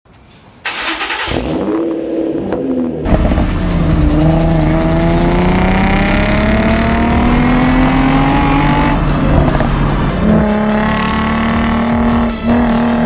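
Infiniti G35's V6 engine accelerating hard: the pitch climbs steadily for several seconds, drops at a gear change about nine seconds in, then runs at steadier revs.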